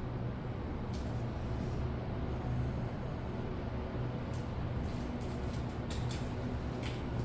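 Steady low mechanical hum of an elevator car and its machinery, with a few faint clicks.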